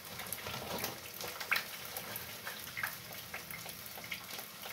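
Water simmering in a steel pot on a gas burner, with a low hiss and many scattered small pops and ticks, as maize flour is poured in from a plastic bag to make ugali; the bag gives a few crinkles and a sharper click.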